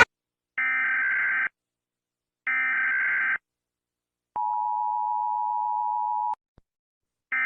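Emergency Alert System alarm: two short, screechy digital data bursts (the SAME header), then a steady two-second attention tone, with another data burst starting near the end.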